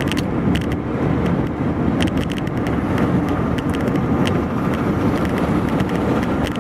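A car's engine and tyre noise heard from inside the cabin while driving, a steady rumble with frequent small irregular ticks.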